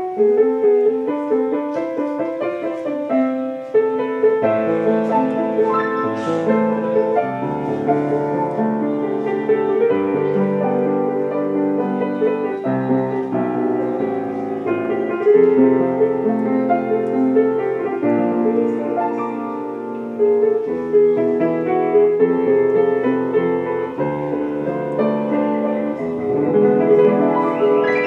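Solo piano played with both hands: a Hindi film song melody over flowing chords, continuous throughout.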